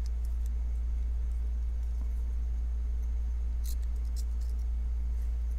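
A few faint, small metallic clicks and ticks as the parts of a Tactile Knife Co Rockwall folding knife are pressed and shifted by hand to line up the handle, back spacer and pocket clip, the clearest group about two-thirds of the way in. A steady low hum runs under it.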